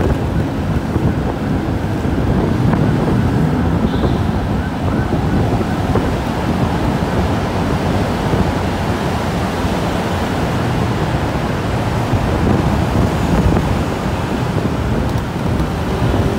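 Steady wind rush on the microphone of a moving motorbike, with road and traffic rumble underneath.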